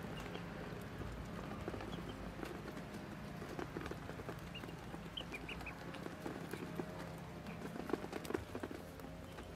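A crowd of ducklings pecking at grain on a plate, a dense patter of quick bill taps and clicks. A few short high peeps come about five seconds in.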